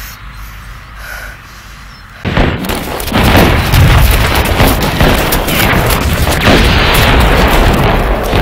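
Battlefield sound effects: a low rumble, then about two seconds in a sudden loud blast, followed by dense, continuous gunfire and explosions.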